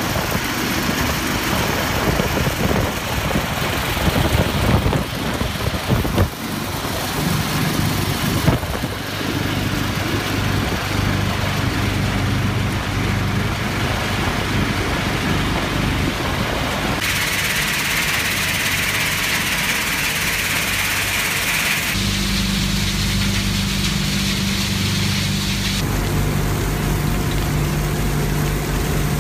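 Machinery of a stone-crushing plant running steadily: electric motors humming and conveyor belts carrying crushed stone. The sound shifts abruptly several times, with a stretch of hiss in the middle.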